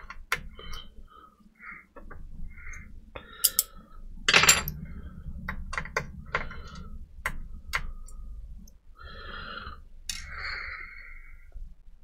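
Small plastic and metal parts of a Dell D620 laptop being handled and pulled free by hand: a string of light clicks, taps and short scrapes, with one louder clatter about four and a half seconds in.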